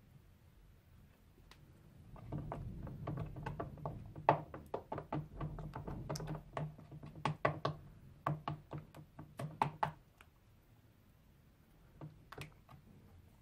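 Slime being worked by hand, giving a rapid run of sticky clicks and pops over a low hum for several seconds, then a few stray clicks near the end.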